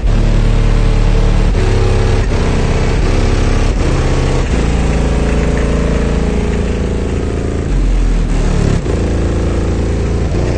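High-power car-audio subwoofers playing bass-heavy music at very high volume, heard from outside the vehicle: deep bass notes held for about a second each, shifting in pitch.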